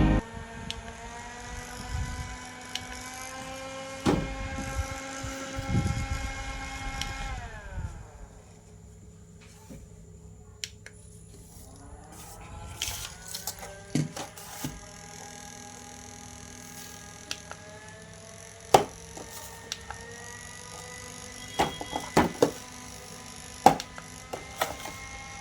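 Small electric toy motor whirring steadily. It winds down and stops about seven seconds in, spins back up a few seconds later and runs on. Scattered clicks and knocks come from the toy being handled.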